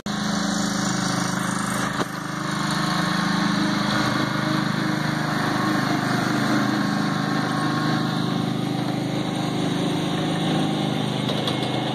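John Deere garden tractor's engine running steadily as it tows a train of barrel cars past, growing louder about two seconds in.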